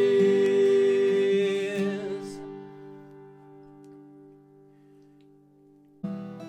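A worship band's final chord rings out with a held sung note, fading away over about four seconds. About six seconds in, acoustic guitar strumming suddenly starts the next song.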